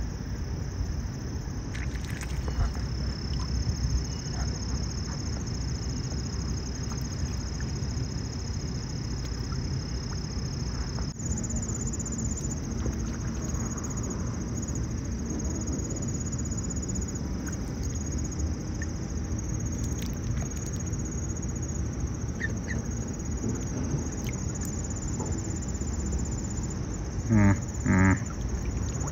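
Mute swans calling: two short nasal calls in quick succession near the end, over a steady low background noise and a thin high steady tone.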